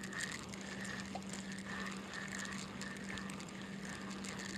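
Fishing reel being cranked to bring in a small hooked bluegill: a faint whir that comes and goes about once or twice a second, over a steady low hum.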